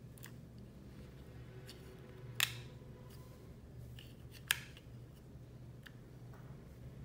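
Small sharp plastic clicks as FASTER S600 wireless earbuds are pressed into their charging case and the case is handled: two louder clicks about two and a half and four and a half seconds in, with a few fainter ones between.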